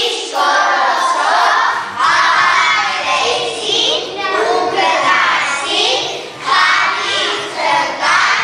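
A group of young children singing together in unison, loud and close, in short phrases.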